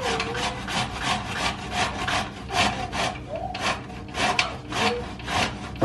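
Vegetables being grated by hand on a grater, with steady back-and-forth strokes at about three a second.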